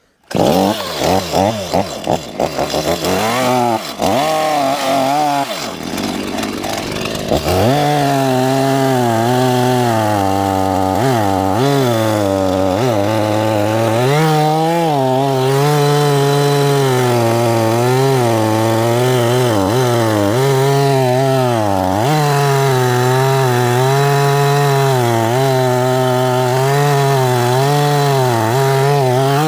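Two-stroke chainsaw starting up and revving unevenly for several seconds, then running at full throttle while cutting through logs, its pitch dipping and recovering again and again as the chain bites into the wood.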